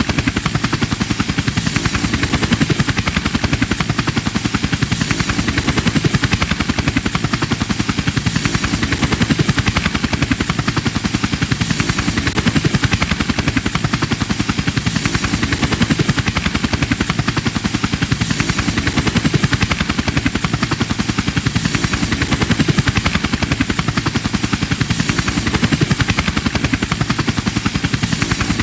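Helicopter running steadily: a fast, even chop of the rotor blades with a thin, steady high whine from the engine above it.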